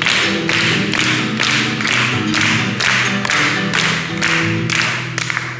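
Acoustic guitar strummed in a steady rhythm, the chords ringing under evenly spaced strokes.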